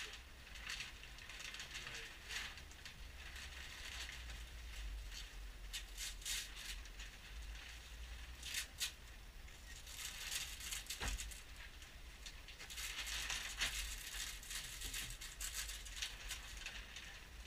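Plastic wrapping crinkling and rustling as it is pulled and handled, in irregular spells, with one sharp knock about eleven seconds in, over a steady low hum.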